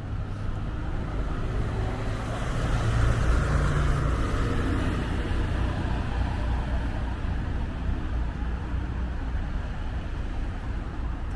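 Road traffic noise, with a car passing that swells and fades about three seconds in. Gusty wind rumbles on the microphone throughout.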